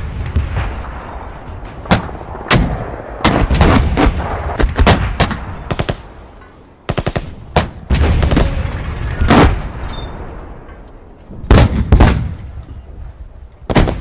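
World War I battle sound effect: a continuous string of gunshots, single cracks mixed with short rapid machine-gun bursts, over a low rumble.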